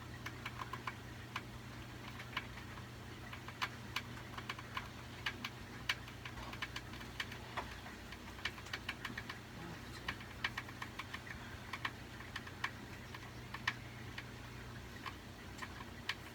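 A hamster cracking and chewing grains and seeds: small, sharp, irregular clicks, several a second, over a steady low hum.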